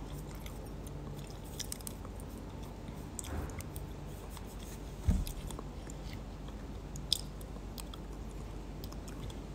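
Quiet chewing with low room hum, a few faint clicks and a soft thump about five seconds in.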